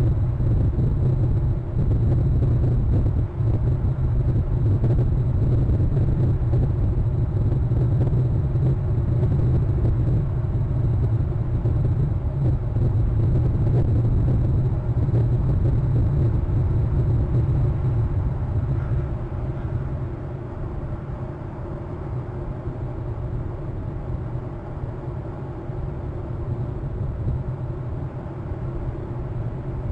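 Steady low outdoor rumble, easing off somewhat about two-thirds of the way in.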